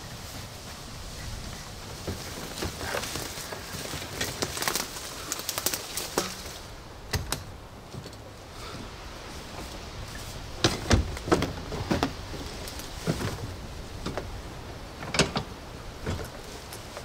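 Scattered clicks, clunks and rattles of metal hardware being handled at the base of a small wooden camper trailer, in uneven clusters over a low steady background.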